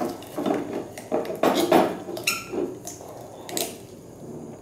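A plastic syringe clinks and scrapes against a glass beaker as its plunger is worked to draw up a thick, viscous copper–ammonia cellulose solution. A series of irregular clicks and rubbing sounds, with a brief squeak a little over two seconds in.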